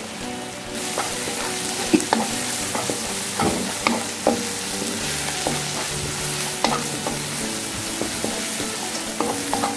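Ground chili-and-garlic spice paste with bay leaves sizzling in hot oil in a non-stick wok while a wooden spatula stirs it, scraping and tapping the pan at irregular moments. This is the sauté stage, frying the paste until it wilts.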